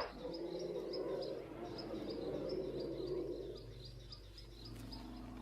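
Outdoor bush ambience: a small creature chirping high and regularly, about two to three chirps a second, over a faint low sustained hum.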